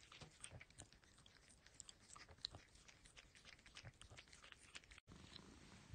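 A kitten chewing close to the microphone: a faint, quick, irregular run of small wet clicks. It breaks off about five seconds in.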